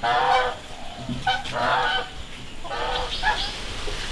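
Three loud calls from a bird, each well under a second long, about a second and a half apart.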